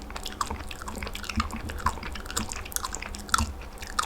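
Crunchy chewing: a run of irregular, crisp bites and crunches, several a second, over a faint steady hum.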